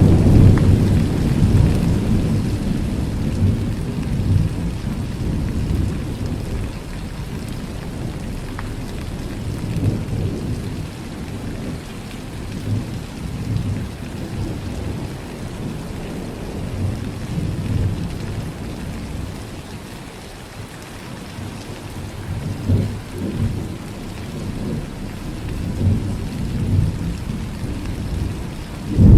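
Rain falling steadily through a thunderstorm. A low rumble of thunder fades away over the first several seconds, more rumbles roll in during the last third, and a sharp, loud thunderclap comes right at the end.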